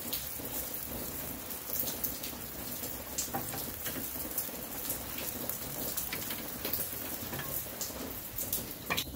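Sauce and rendering fat sizzling on the hot grill grate of a Big Green Egg, a steady hiss with many sharp crackles and pops. Near the end a couple of louder knocks come as the ceramic lid is closed, and the sizzle drops away.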